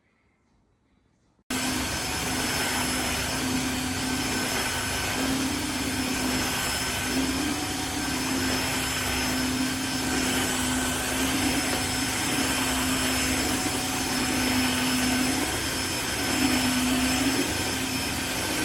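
Tineco iFLOOR 3 Breeze cordless wet-dry floor cleaner running, starting suddenly about a second and a half in: a loud, steady motor noise with a low hum and a faint high whine.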